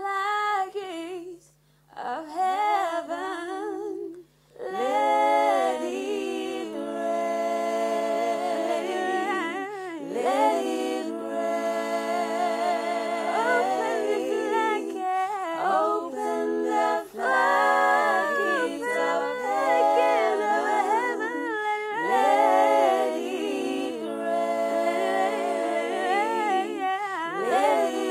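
One singer's voice, layered into a four-part a cappella harmony, humming and singing wordless sustained chords. At first only short phrases come with gaps between them; from about five seconds in, the full layered chords sound together.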